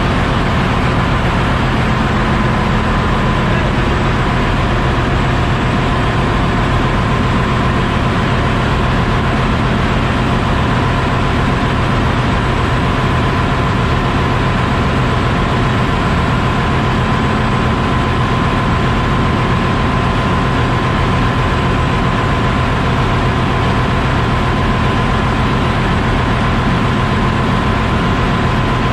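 Large multi-cylinder marine diesel engine running in a ship's engine room: a loud, steady din with a steady high whine over it.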